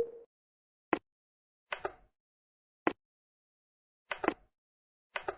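Toy brick train's plastic wheels clacking over the track joints: sharp clicks about once a second, some in quick pairs, with silence between.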